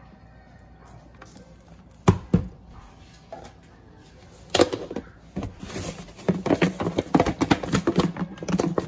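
Plastic handling sounds: two sharp knocks about two seconds in, then a dense run of clicks and clacks as a plastic lid is fitted and pressed onto a plastic food container.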